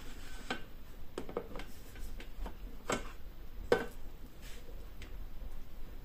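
Plastic simmering basket lifted out of a Thermomix TM6's stainless steel mixing bowl with the spatula hook, giving a few scattered light clicks and knocks.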